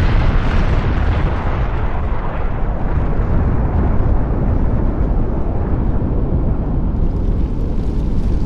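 Long, loud rumble of a huge explosion, a nuclear-blast sound effect. The hiss slowly dies away while the deep rumble rolls on.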